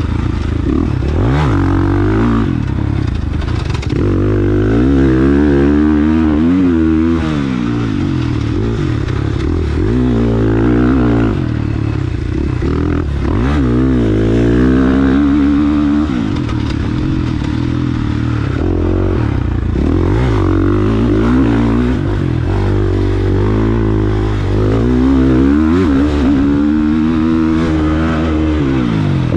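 450cc dirt bike engine being ridden hard, revving up and falling back over and over as the throttle is opened and shut through the turns. Heard close up from a camera on the bike or the rider.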